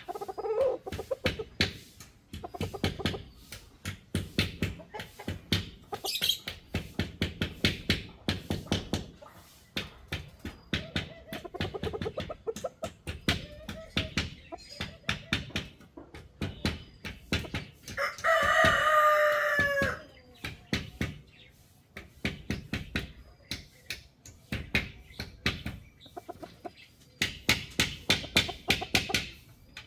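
Chickens clucking in rapid runs of short, sharp calls, with a rooster giving one long, loud crow about two-thirds of the way through.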